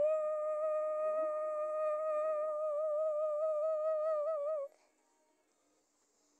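A girl's voice holding one long sung note, steady at first and wavering near the end, stopping suddenly about four and a half seconds in.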